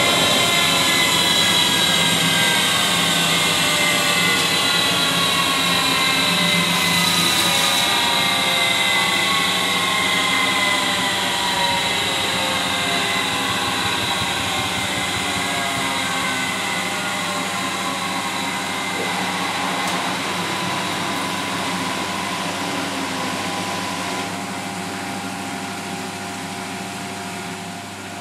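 Miele W 425 front-loading washing machine's drum spin winding down: the motor's whine falls slowly in pitch and the machine grows quieter over about twenty seconds. A brief hiss comes about seven seconds in.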